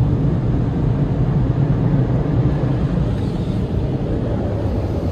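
Overhead dryer blowers of a PDQ Laserwash 4000 touchless car wash gantry running steadily, a low rush of air heard from inside the car's cabin during the air-drying stage.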